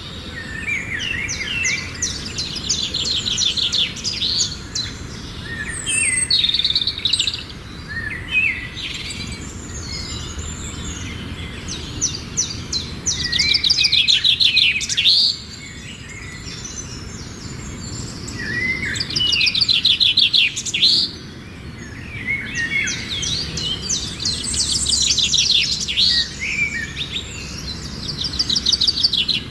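Sparrows chirping: bursts of rapid, high twittering note series that come every few seconds, with the loudest runs near the middle and about two-thirds of the way through.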